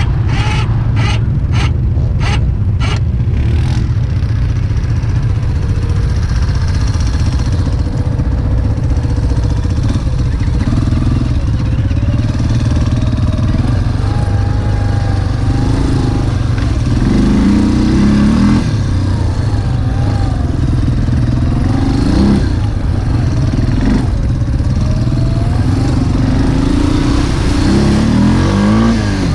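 ATV engines running in the mud and revving up and down repeatedly. About seven sharp clicks come in quick succession during the first three seconds.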